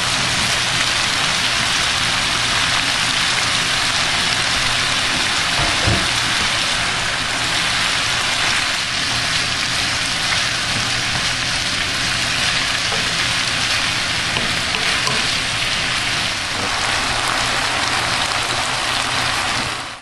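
Chicken, sausage and sliced vegetables sizzling in a frying pan, a steady hiss, with a single light knock about six seconds in.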